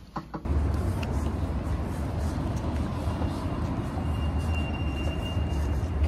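Outdoor rumble: a loud, uneven low rumble with hiss, with a faint thin high tone from about three seconds in.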